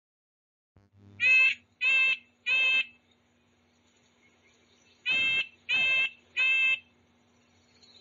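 Red-breasted nuthatch calling: two sets of three short calls, evenly spaced, the second set about two and a half seconds after the first.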